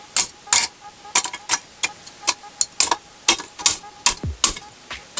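Metal tongs and lumps of charcoal clicking and clinking as hot coals are picked up and dropped into a charcoal flat iron: a string of sharp, irregular clicks, a few a second.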